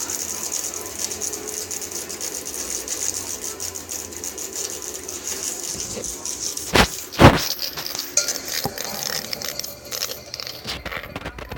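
14-inch Jet bandsaw running while it resaws oak, a steady hiss from the blade in the cut. Two sharp knocks land close together about seven seconds in.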